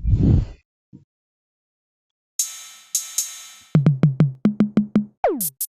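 Programmed drum-machine beat playing back: a low thump at the start, then after a pause two crash-like cymbal hits, a quick run of 808 bass notes, one long falling 808 slide, and hi-hats coming in near the end.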